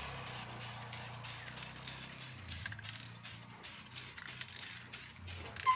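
Aerosol spray-paint can hissing as it sprays onto an outboard motor's metal lower unit, with a low hum underneath for about the first two seconds.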